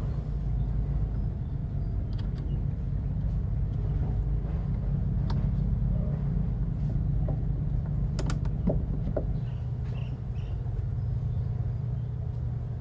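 Steady low rumble with a faint high whine, and a few faint clicks and taps of hose clamps and rubber fuel hoses being refitted to a diesel fuel filter housing.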